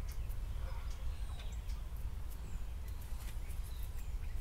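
Steady low background hum with a few faint bird chirps and light clicks from a vinyl pinstripe strip being handled as its backing paper is picked loose.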